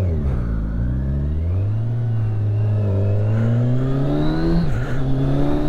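Kawasaki Ninja 1000SX's inline-four engine pulling away under moderate throttle, rising steadily in pitch. It drops sharply for an upshift a little over four and a half seconds in, then climbs again. The engine is still warming up from cold.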